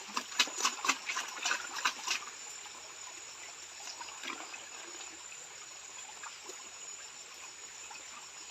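Water splashing and sloshing as a gold pan is swirled in a shallow stream, a quick run of splashes for the first two seconds, then the steady trickle of the stream with a thin, high insect drone.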